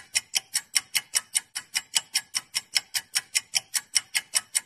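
Fast, even clock-like ticking, about five ticks a second, used as a waiting sound effect.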